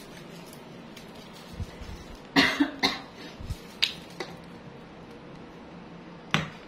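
A woman coughs two or three times in quick succession about two seconds in, followed by a few light clicks and one sharp tap near the end.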